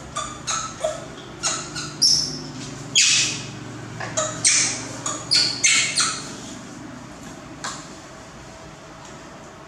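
A quick series of short, high-pitched animal squeaks and squawks, about a dozen over the first six seconds with one more near the end, the loudest about three seconds in.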